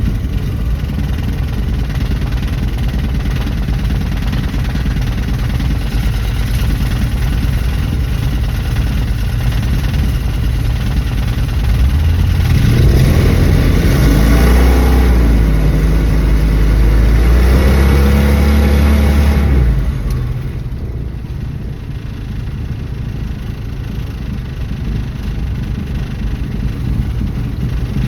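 A 1974 Dodge Dart driving, its engine running steadily with road noise. About twelve seconds in, the engine gets louder and climbs in pitch as it accelerates for several seconds, then falls back suddenly as the throttle comes off, and the car carries on more quietly.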